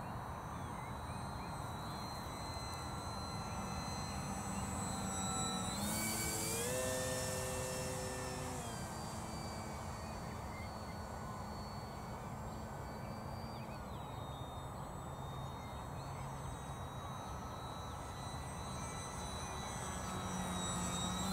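Electric motor and propeller of a Durafly Tundra RC model plane whining in flight, heard against a steady hiss. The whine steps up in pitch about six seconds in as the throttle opens, drops back a couple of seconds later, dips again around the middle and begins rising near the end.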